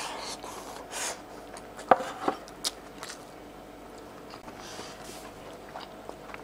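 A person eating curry rice with a spoon from a bowl. Two audible breaths come in the first second, then a sharp click of the spoon against the bowl about two seconds in, followed by a couple of lighter clicks and quiet chewing.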